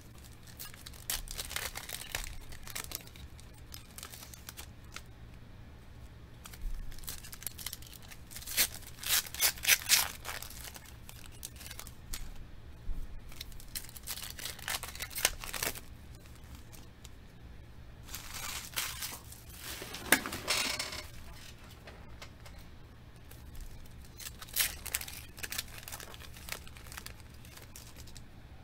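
Foil trading-card pack wrappers being torn open and crinkled by hand, in about five separate bouts of tearing and rustling.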